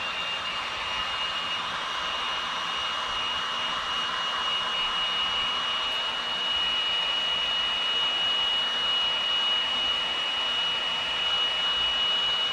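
Handheld electric heat gun running, a steady rush of blown air with a high, steady whine from its fan motor.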